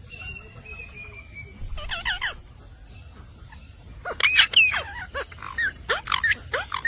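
Indian ringneck parrot calling: a faint falling whistle, a short burst of calls about two seconds in, then a louder run of quick, high calls from about four seconds on.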